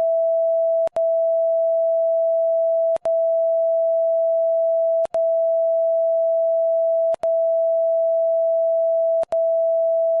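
A loud, steady electronic tone at one pitch, broken by a brief click and gap about every two seconds.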